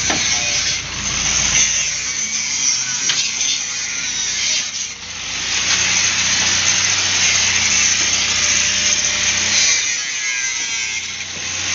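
Power tool cutting through steel, a steady hissing grind that dips briefly about five seconds in.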